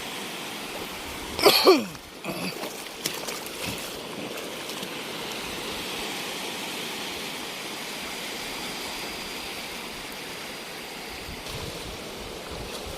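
Shallow seawater washing and trickling steadily around the wader. About a second and a half in comes a short loud sound falling in pitch, followed by a few light splashes or knocks.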